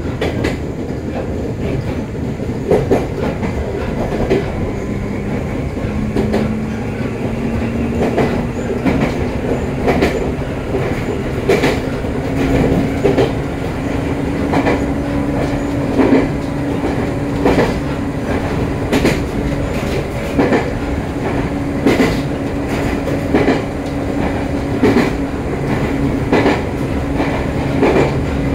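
Electric commuter train running on the Joshin Line, heard from inside the car. The traction motors' whine rises in pitch over the first dozen seconds as the train gathers speed, then holds steady, while wheels knock over the rail joints in a regular clickety-clack about every second and a half.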